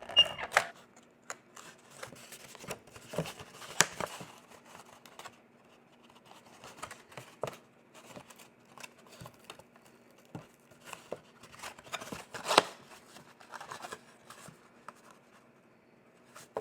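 Cardstock being handled and folded into a box base: rustling and creasing with scattered sharp clicks and taps, the loudest about twelve seconds in, over a faint steady hum.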